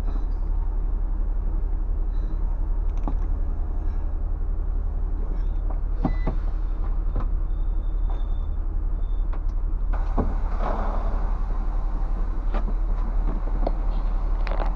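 Scania bus's diesel engine running steadily at low speed, a low rumble heard from inside the driver's cab, with scattered clicks and rattles. About ten seconds in, a rush of noise rises over the rumble.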